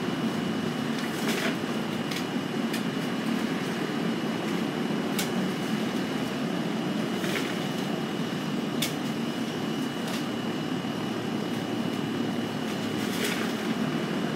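A steady low rumbling hum with a thin, steady high tone over it, and a few scattered light clicks from small objects being handled.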